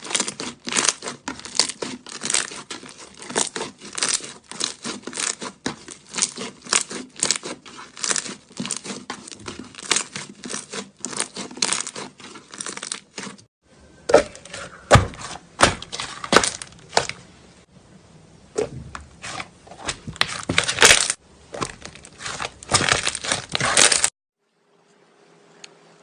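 Slime being squished and pressed by hand: quick, irregular clicking and crackling pops, with a short pause about halfway through, stopping a couple of seconds before the end.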